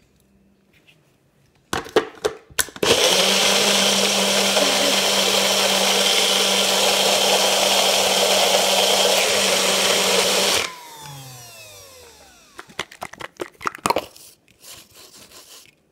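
Personal bullet-style blender blending a strawberry milkshake: a few clicks as the cup is pressed onto the base, then the motor runs loud and steady for about eight seconds. It cuts off and winds down with a falling whine, followed by knocks and rattles as the cup is taken off the base.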